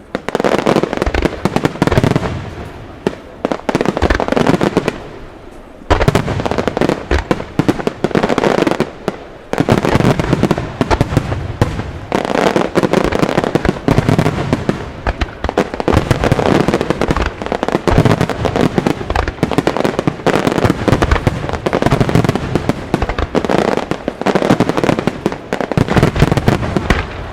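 Aerial firework shells bursting in a dense, continuous barrage of booms and crackling. A brief lull comes about five and a half seconds in, then the barrage picks up again.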